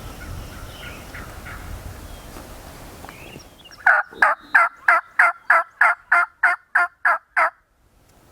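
A run of about twelve evenly spaced turkey yelps, roughly three a second, starting about four seconds in and stopping abruptly after three and a half seconds; before that only a low outdoor background.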